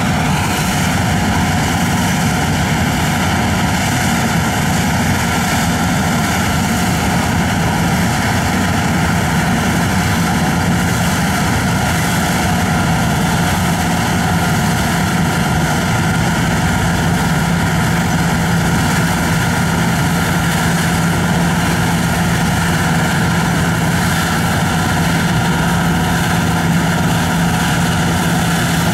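Don-1500 combine harvester at work: its diesel engine and threshing machinery running steadily under load, a continuous low drone with an even rush of machine noise over it.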